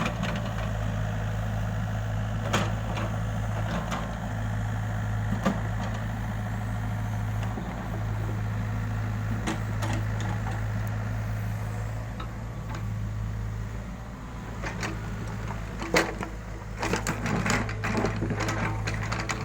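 Excavator engine running steadily, with scattered sharp clanks and knocks that come more often near the end.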